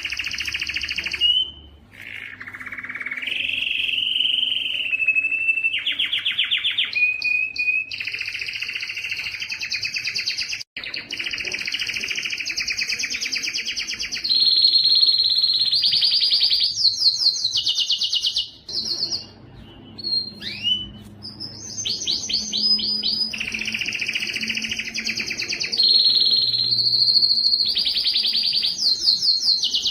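Domestic canary singing: a long song of rapid trills and rolls alternating with held whistled notes, changing phrase every couple of seconds, with a brief pause about two-thirds of the way through.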